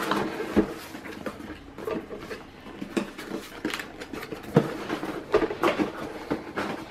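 Cardboard packaging being handled: box flaps folded open and a white inner carton slid out of its printed outer sleeve, giving irregular scraping, rustling and light knocks.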